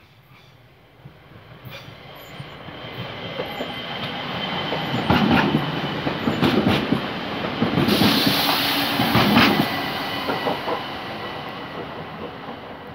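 ÖBB Talent electric multiple unit passing close by. Its running noise builds up, peaks midway with several wheel clacks over rail joints and a rushing hiss, then fades.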